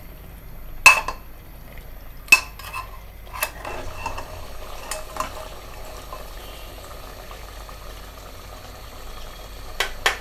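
Metal spoon clinking against a metal cooking pot while chicken curry is stirred and braised: a few sharp clinks in the first few seconds, the first the loudest, then a faint steady hiss of the frying meat, with more clinks near the end.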